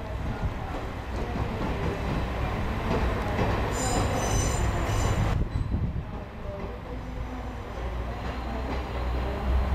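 JR West KiHa 120 single-car diesel railcar rolling slowly over the station pointwork, its diesel engine rumbling steadily. Its wheels squeal shrilly on the curved track for a second or two about four seconds in.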